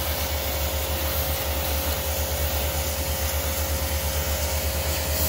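Pressure washer running, its water jet spraying against a tractor's plastic roof canopy: a steady hiss over a low hum that pulses quickly.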